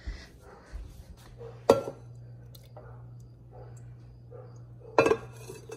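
Kitchenware being handled: a sharp clink of dishes about two seconds in, then faint small knocks while melted butter is poured from a small bowl into a glass measuring jug, over a steady low hum.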